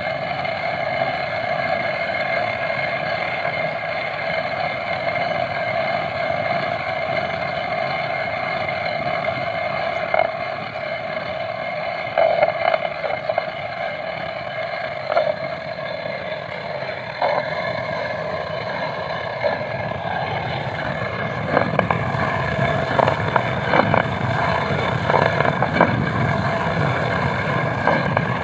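Hand-turned stone quern (atta chakki) grinding wheat: a steady drone as the upper millstone turns on the lower one. From about three quarters of the way in, a heavier low rumble with scattered sharp clicks.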